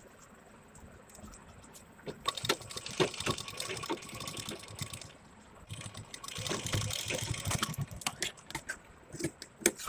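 Domestic sewing machine stitching through layered fabric in two short runs, with the fabric handled and shifted between them.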